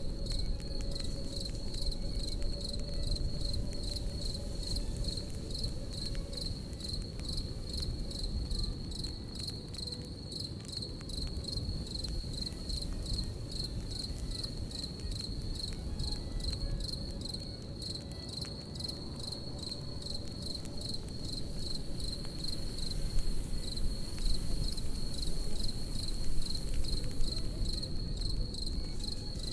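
Crickets chirping in a steady, fast pulsing trill over a crackling campfire, with fine pops and a low rumble from the fire.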